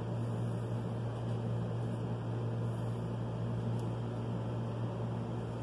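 Steady low machine hum with a constant even hiss over it.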